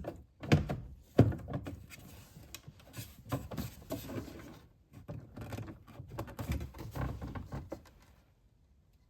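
Plastic interior trim panels knocking and rattling as they are pulled loose and handled, with two sharp loud knocks about half a second and a second in, then scattered smaller knocks and rattling that stop near the end.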